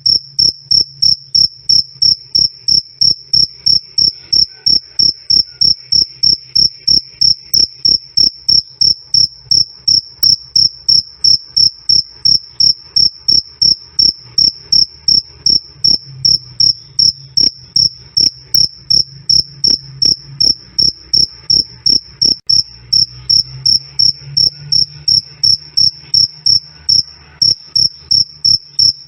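A male cricket chirping loudly and steadily, a high-pitched chirp repeated at an even rate of about three a second.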